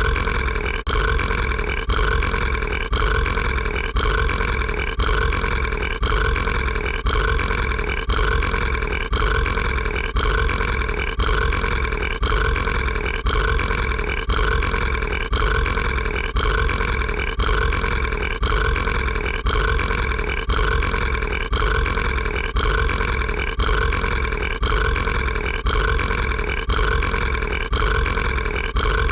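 Mike Wazowski's cartoon burp, a long steady belch looped without a break. The same short stretch repeats in an even rhythm, about three times every two seconds.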